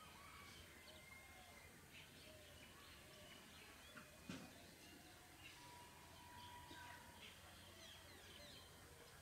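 Near silence with faint bird chirps and calls scattered throughout, and a single soft click about four seconds in.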